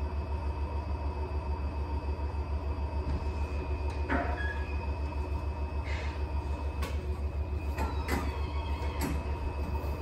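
Electrolux W75MP commercial washer-extractor spinning at high speed in its final extraction spin, a steady whine over a fast, even low throb. A few light clicks and knocks come in the second half.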